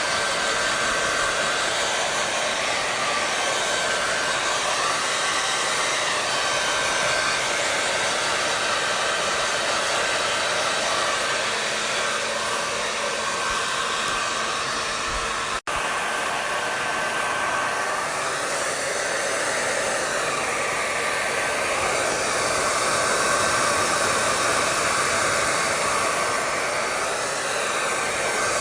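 Hair dryer running steadily: a loud, even rush of blown air with a faint steady whine from its motor. It cuts out for an instant about halfway through.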